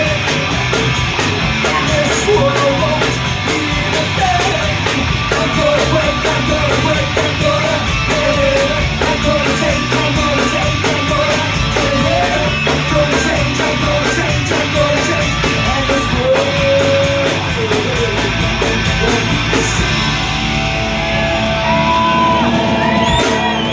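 Live punk rock band playing loud, with distorted electric guitars, bass and drums. About twenty seconds in the drums stop and held guitar notes ring on.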